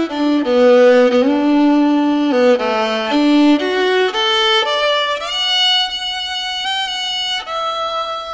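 Background music: a solo violin playing a melody of held notes, sliding from one note to the next.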